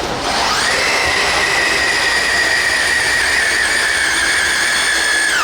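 RC pulling vehicle's motor and drivetrain whining at full throttle during a pull. The whine rises quickly at the start, holds steady while dropping slightly in pitch, and cuts off suddenly near the end.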